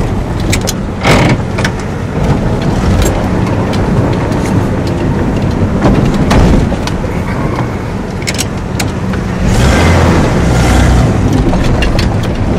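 Motor vehicle driving, a steady low rumble with frequent short clicks and knocks, louder for a stretch about ten seconds in.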